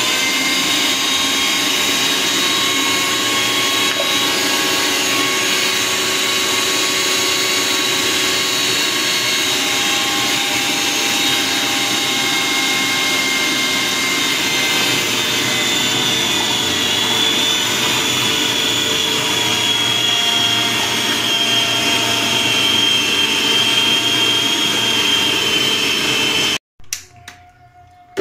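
Usha food processor motor running steadily while kneading maida dough in its bowl, with a high whine that drifts slowly lower in pitch. It cuts off suddenly about a second and a half before the end.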